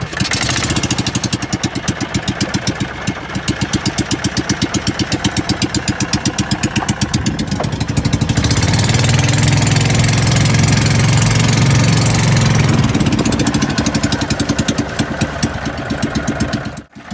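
Fishing boat's engine running with a rapid, even beat, running louder and steadier from about eight seconds in to about thirteen seconds, then easing back.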